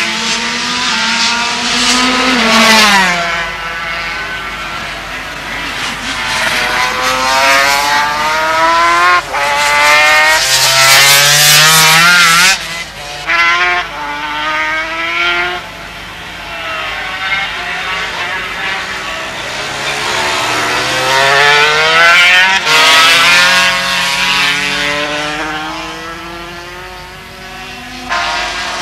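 Two-stroke Grand Prix racing motorcycle engines at high revs, the pitch climbing through the gears and dropping again as the bikes pass and brake for corners. The sound jumps abruptly at several cuts between shots.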